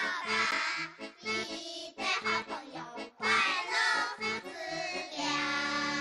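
Children's TV theme song: a child's voice singing a cheerful melody over a bright music backing.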